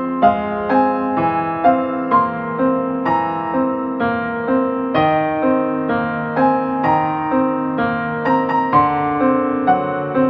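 Background piano music: gentle keyboard notes in a steady, even rhythm.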